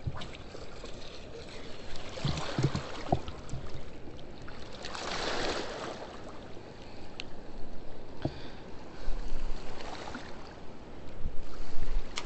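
Rushing river water below a spillway, a steady noisy wash, with a few low knocks from handling about two to three seconds in and a brief louder rush about five seconds in. Wind buffets the microphone in low rumbles near the end.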